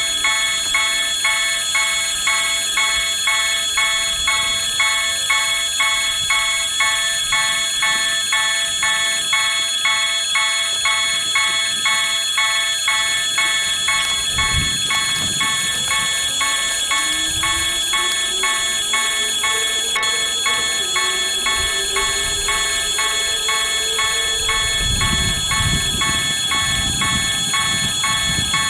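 Argentine railway level-crossing warning bell ringing in a quick, even rhythm of about two and a half strikes a second, over a steady high tone. Low rumbles pass briefly about halfway through and again near the end.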